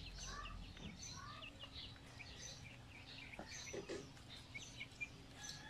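Young Silkie chickens, about two months old, peeping faintly in short, scattered chirps.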